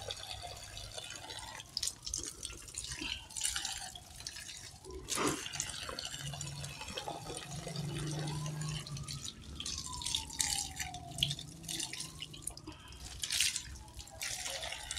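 Water pouring from a garden hose onto bare ground, splashing and spattering unevenly; near the end a canvas sneaker is held in the stream to rinse it.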